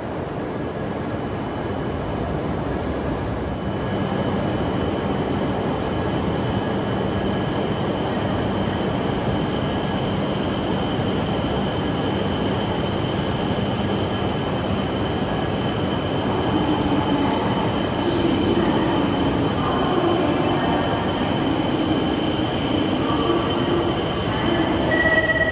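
Shinkansen train moving along the platform: a steady rush of running noise, with high, steady whining tones that set in a few seconds in.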